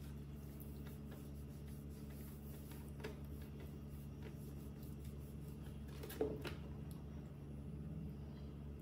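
Quiet room tone with a steady low hum, broken by a few faint clicks and one sharper knock about six seconds in.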